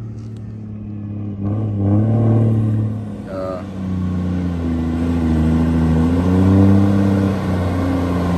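Heavy diesel truck engine with a modified exhaust, running under throttle as the truck approaches; the deep engine note rises about two seconds in, then wavers and grows louder as it comes close.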